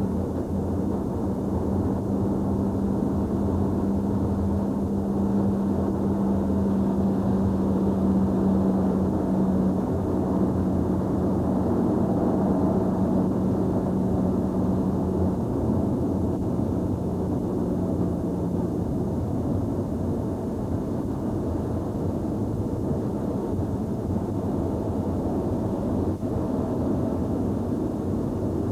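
Steady road noise from inside a moving car on a wet road. A steady low hum fades away a little past the middle.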